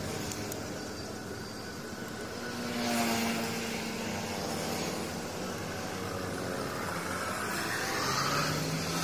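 An engine running steadily, its pitch shifting and its level swelling about three seconds in.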